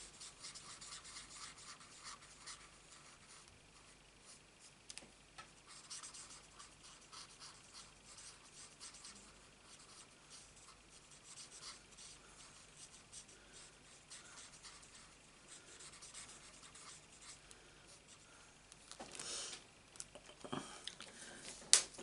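Faint, irregular scratchy strokes of a Stampin' Blends alcohol marker nib rubbing over cardstock as a stamped flower is coloured in. Near the end comes a louder rustle of paper and a single sharp tap.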